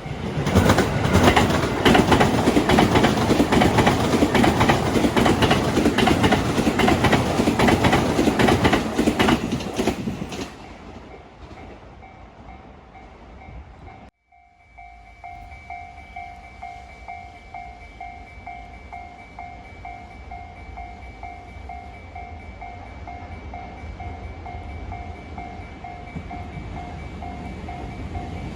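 Freight train passing close by, its wheels clacking rapidly over the rail joints, loud for about ten seconds before it fades. Then a level-crossing warning bell rings in a steady repeating electronic ding, and the rumble of another train builds near the end.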